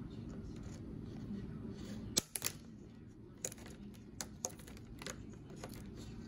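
Scissors cutting plastic gutter-guard mesh: a series of sharp, irregularly spaced snips and clicks starting about two seconds in, over a low steady hum.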